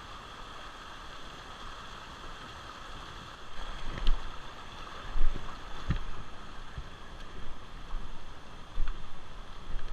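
Steady rush of flowing river water, joined from about three and a half seconds in by irregular low thumps and a few sharp knocks.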